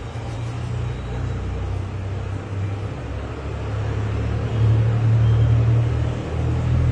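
A steady low mechanical rumble, like a running motor or engine, which grows louder about halfway through.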